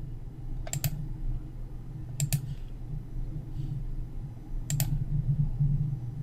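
Three crisp clicks of a computer mouse button, each a quick press-and-release pair, spaced about a second and a half to two and a half seconds apart.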